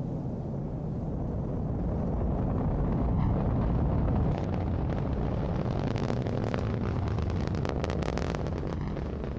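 Ariane 5 ECA rocket's two solid boosters and Vulcain 2 main engine during ascent: a deep, steady rumble that swells over the first few seconds, with sharp crackling setting in about halfway through.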